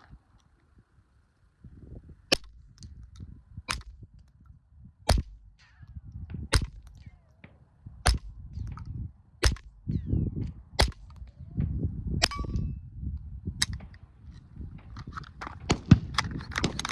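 Retay RA 15-22 .22 pistol with a Sonicore Skarv suppressor firing subsonic rounds: a slow string of sharp suppressed shots about one and a half seconds apart. Near the end comes a quick flurry of small clicks and rattles.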